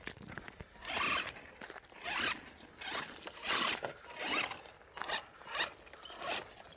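Maverick Phantom XT radio-controlled truck driving off-road, its electric motor and drivetrain whining in short bursts, about one a second, rising and falling in pitch as the throttle is blipped, with tyres scrabbling over dirt.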